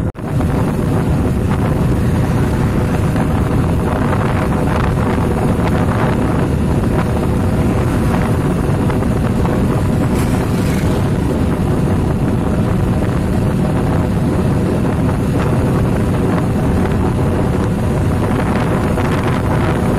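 Wind buffeting the microphone on a moving motorcycle, over the steady running of the motorcycle's engine and tyres on the road. The sound drops out for a moment right at the start.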